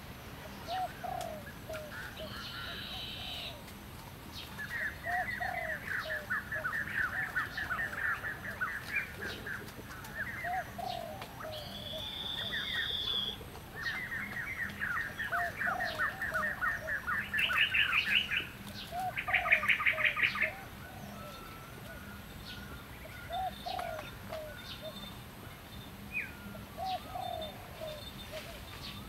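Wild birds calling: a low, short call repeats every few seconds, while other birds sing fast, rapid trills and higher buzzy notes in several bouts, loudest a little past the middle.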